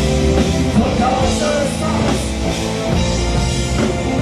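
Live rock band playing loudly: a male lead vocal over electric guitar and drum kit, heard from the audience.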